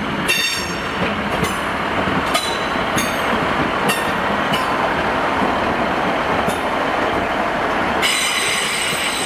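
A two-car diesel multiple unit rolling past on curved track: a steady rumble of wheels on rail, with scattered sharp wheel clicks. High-pitched wheel squeal comes in strongly about eight seconds in.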